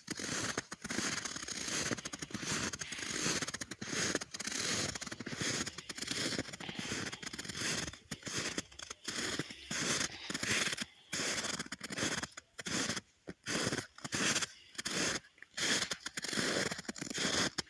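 Footsteps crunching in snow, one crunch after another in a walking rhythm. In the second half the steps stand apart, with short silences between the crunches.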